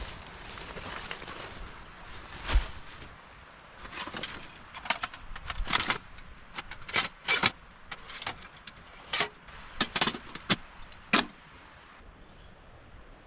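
A string of irregular sharp clicks and clatters, thickest in the middle and later part, over a steady background hiss.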